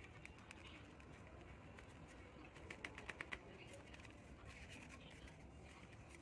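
Faint rustling and crinkling of folded origami paper being handled, with a quick run of crisp crackles about three seconds in.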